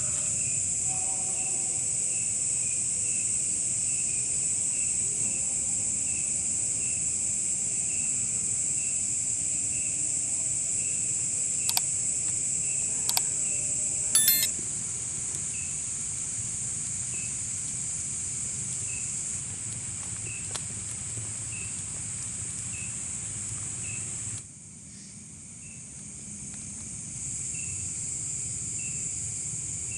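Insect chorus of crickets: a steady high-pitched trill, with one chirp repeating about once a second. A few sharp clicks come a little before the middle. The chorus drops away sharply about four-fifths through and builds back a couple of seconds later.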